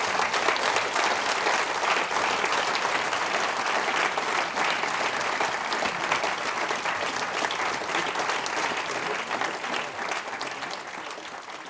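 Seated audience applauding: many people clapping steadily, tapering off near the end.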